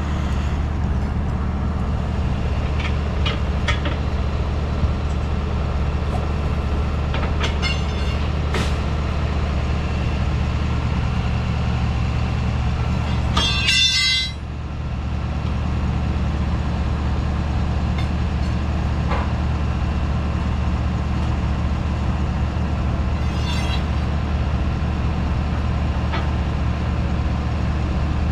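A heavy truck engine idling steadily, with short rattling bursts of an air impact wrench working the lug nuts of a trailer wheel to remove a flat tire; the loudest burst comes about halfway through.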